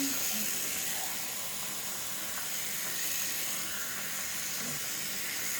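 Tap water running steadily into a sink, a continuous hiss.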